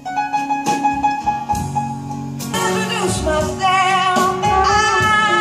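Recorded music with singing, played back through Linn Katan standmount speakers driven by a Goldmund Mimesis SR amplifier. A new passage starts with held, sharply struck instrumental notes. About two and a half seconds in, a sung voice with a wavering vibrato comes in over fuller accompaniment.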